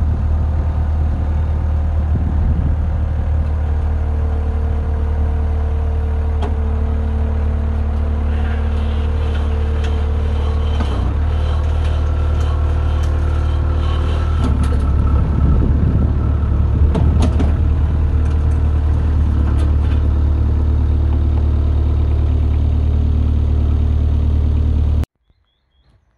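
Avant 635 compact loader's Kubota V1505 diesel engine running steadily at low revs while the loader creeps down the trailer ramps, growing louder partway through with a few knocks. The sound cuts off abruptly near the end.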